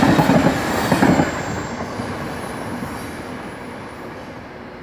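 High-speed electric trainset passing and moving away: loud wheel-on-rail running noise for about the first second, then fading steadily as it recedes.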